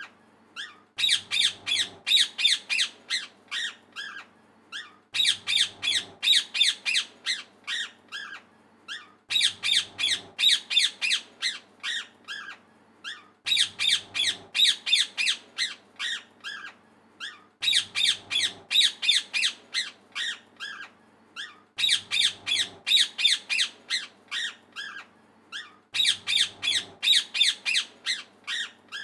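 A parrot chirping: rapid strings of sharp, high calls, several a second, in phrases of a few seconds broken by short pauses. The same phrase comes back at even spacing about every four seconds, as a looped recording.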